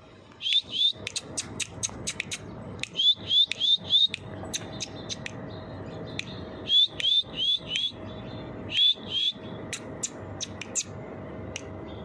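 A bird calling: short, high, rising chirps in quick runs of two to four, repeated every few seconds, with sharp clicking chips scattered between them.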